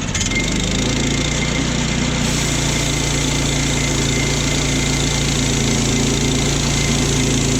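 Small gasoline engine of a portable bandsaw mill picking up speed just at the start, then running steadily.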